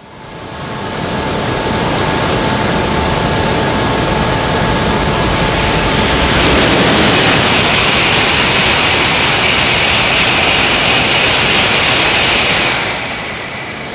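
Coupled E3 and E2 series Shinkansen trains running along the platform: a steady rush of wheel and air noise that grows louder and hissier about six seconds in as the cars draw level, and eases near the end.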